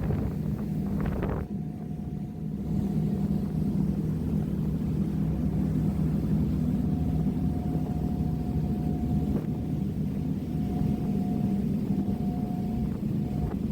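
Ferry engines droning steadily: a low hum with a thin, higher steady tone that comes and goes.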